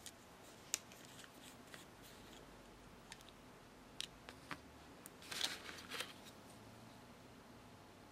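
Faint handling noises over quiet room tone: scattered light clicks and a brief rustle about five seconds in.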